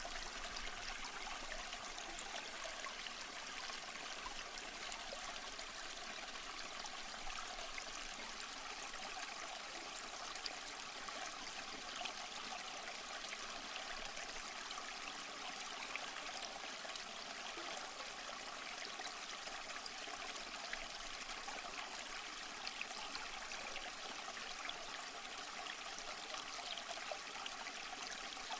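Running water, like a small stream trickling, steady and unbroken.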